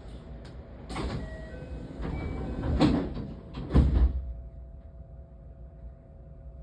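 Passenger doors of a 321-series electric commuter train sliding shut, with knocks around one and three seconds in and a heavy thump about four seconds in as they close. A steady low hum from the standing train follows.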